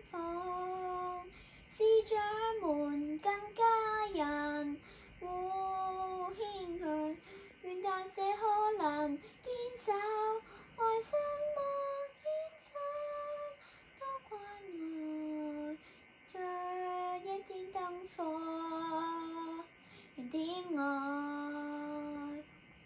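A young girl singing solo: phrases of held and gliding notes, some with a slight waver, separated by short pauses.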